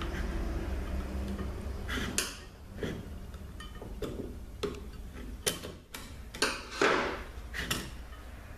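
Screwdriver and steel snap ring clicking and scraping against a 4L80E overdrive clutch housing as the stubborn ring is worked into its groove by hand. A string of sharp metallic clicks starts about two seconds in, with a longer scrape near the end.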